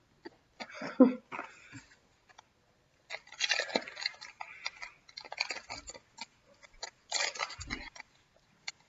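Foil trading-card pack wrapper crinkling and tearing as it is pulled open by hand, in several short irregular bursts.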